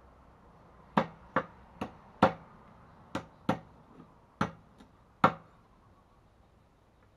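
Cleaver chopping grilled meat on a round wooden chopping block: about ten sharp chops at an uneven pace, starting about a second in and stopping a little past halfway.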